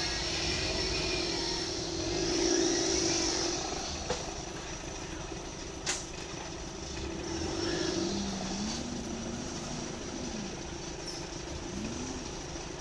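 Off-road challenge truck's engine running as it works up a steep bank, with a steady whine. About six seconds in there is one sharp crack, and from about eight seconds the engine pitch rises and falls in short revs.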